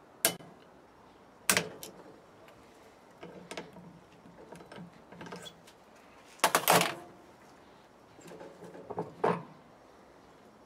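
Metal clicks and clatter of pliers and a brake master cylinder being handled in a bench vise: a sharp click right at the start, another about a second and a half in, a louder cluster of clatter just past halfway, and one more knock near the end.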